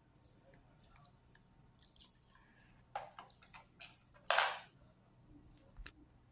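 Small stationery items being handled and set into the compartments of a clear plastic organizer tray: light clicks and taps on plastic, with a louder short rustle about four seconds in.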